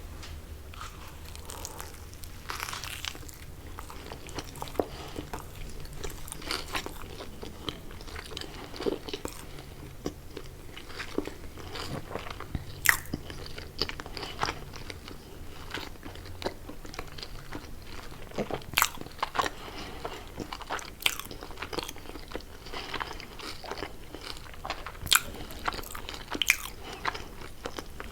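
Close-up sounds of a person eating crunchy fried fast food: irregular biting, crunching and wet chewing, with frequent sharp crackles.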